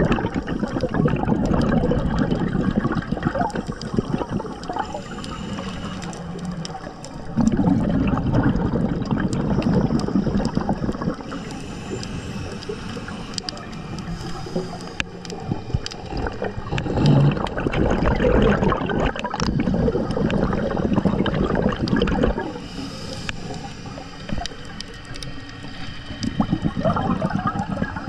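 A scuba diver's exhaled bubbles rushing from the regulator underwater. The bubbling comes in loud spells of several seconds about every nine seconds, with quieter stretches between them as the diver breathes in.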